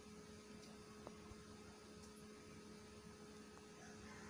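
Near silence with a faint steady hum, and one faint click about a second in.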